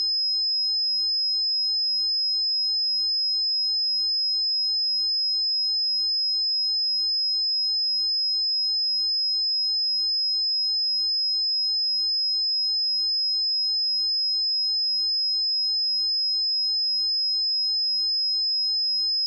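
A steady 5101 Hz sine-wave test tone: a single pure high-pitched tone held at constant pitch and level.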